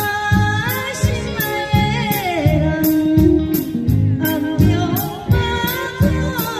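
A band playing a Taiwanese song: a sung melody gliding over a steady beat, with bass and regular cymbal strikes.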